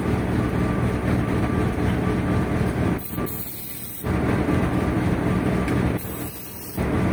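Two short hisses of an aerosol spray can, about three seconds in and again near the end, sprayed onto a new clutch pressure plate and release bearing. A steady low motor rumble runs underneath the rest of the time.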